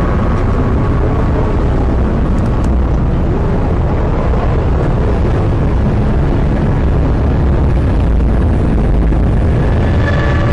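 Loud, steady low rumbling noise without speech.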